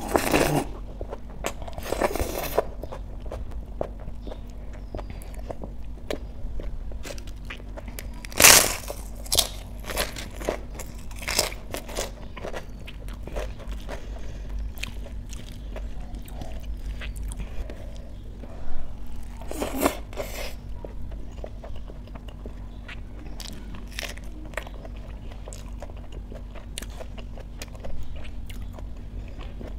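Close-miked mukbang eating: wet chewing and mouth clicks of rice and lentil dal eaten by hand, with a few louder crunchy bites, the loudest about eight seconds in and another near twenty seconds.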